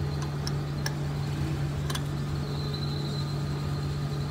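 Steady low mechanical hum with a few brief light clicks.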